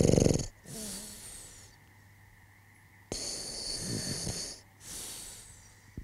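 A man snoring in his sleep, twice: a loud low rasping snore on each breath in, followed by a softer breath out, about three seconds apart.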